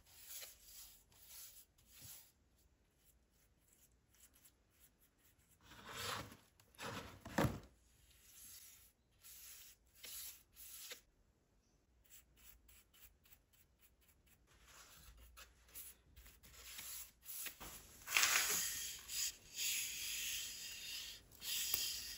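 A bristle paintbrush stroking oil onto a wooden hammer handle: quiet, scratchy brush strokes, with a low knock about seven seconds in. Near the end comes a longer, louder stretch of rubbing noise.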